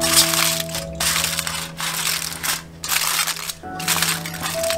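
A run of harsh, noisy sounds, each lasting about a second with short breaks between, over background music with held notes.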